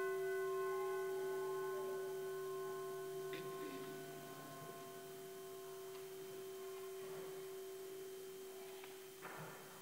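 Consecration bell ringing on as one long, pure bell tone that fades slowly, marking the elevation of the host at Mass.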